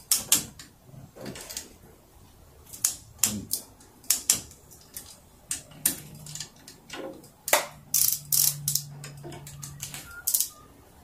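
Torque wrench set to 10 N·m ratcheting a bolt down: irregular runs of sharp clicks, a few of them louder than the rest.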